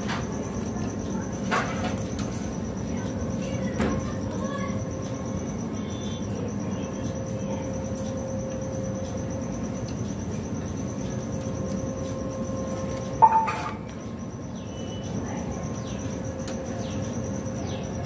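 A steady high-pitched insect-like trill over a low steady hum, with a few sharp clicks, the loudest about thirteen seconds in.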